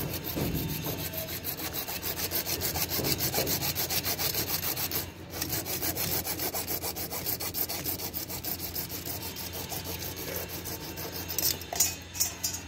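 A hand-held hacksaw blade sawing back and forth through a CPVC water pipe in quick, even strokes, with a brief break about five seconds in. Near the end the sawing stops and a few sharp clicks follow.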